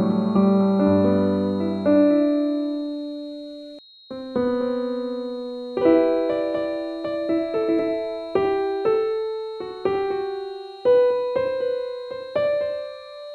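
Slow piano music: single notes and soft chords struck one after another, each fading away, with a brief near-pause just before the middle. A faint, steady high tone sounds under the piano throughout.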